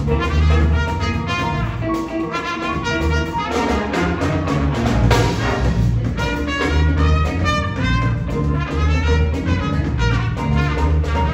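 Jazz big band playing a funk-groove tune: saxophones and brass over a steady, pulsing bass line, with a trumpet played out front at the microphone.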